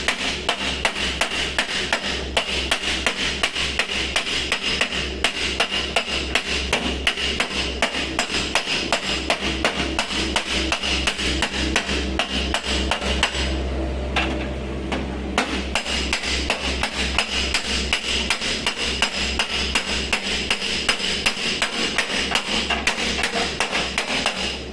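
Hammer blows on sheet-metal bodywork, about three a second in a steady rhythm, with a pause of about two seconds midway: panel-beating to straighten accident damage.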